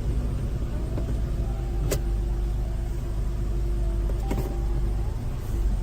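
Car running: a steady low rumble with a faint steady hum over it, and a sharp click about two seconds in and another a little past four seconds.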